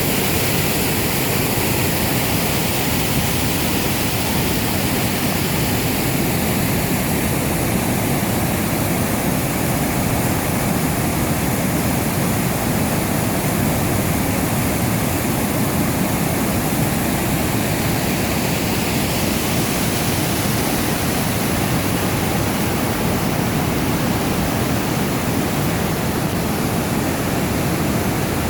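Water of the Piracicaba River rushing in a steady, even wash of noise.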